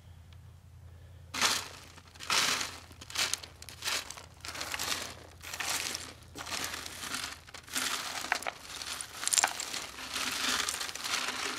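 Damp soil and debris being worked across a wire mesh sifting screen: a run of irregular scraping, rustling strokes that starts about a second in.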